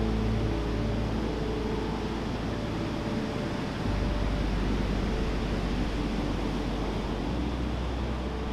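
Ambient background music of low, held chords that shift about four seconds in and again near the end, over a steady rush of sea surf.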